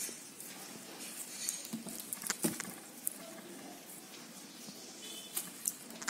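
Light rustling and a few scattered soft clicks of flat plastic basket-weaving wire worked between the fingers as a knot is pulled tight.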